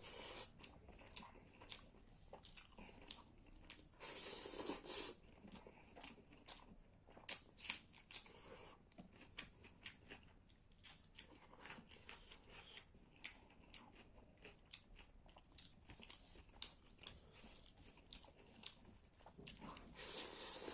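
Close-miked eating sounds: a person chewing mouthfuls of chicken gravy and rice, with wet mouth clicks, smacks and crunching bites.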